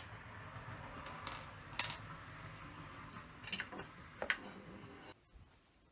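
A few sharp metallic clicks and clinks from small parts and tools being handled, the loudest about two seconds in, with a quieter stretch near the end.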